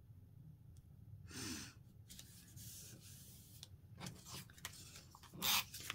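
Cardstock strips being slid, pressed and rubbed down on a cutting mat, with a hissing rub in the middle and two short scratchy strokes of a repositionable tape runner near the end.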